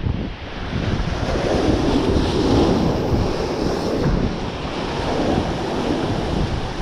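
Ocean surf washing in, with wind buffeting the microphone; the rush of a wave swells louder about a second and a half in and eases off after about four seconds.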